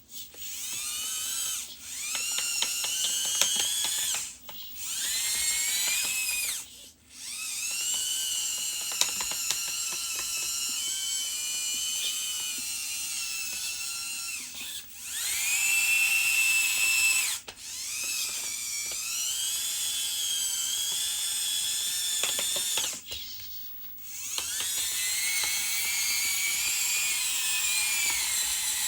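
Small electric motors and gearboxes of radio-controlled model construction machines whining as they drive and work, the pitch rising and falling with the throttle. The whine stops and starts again several times, with fine ratcheting clicks from the gears.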